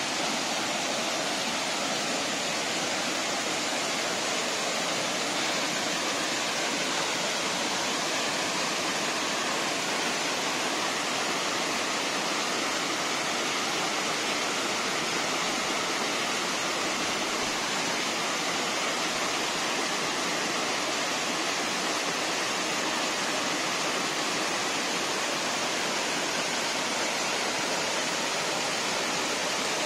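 Bertha Falls, a mountain waterfall tumbling over layered rock ledges, rushing in a steady, unbroken roar of falling water.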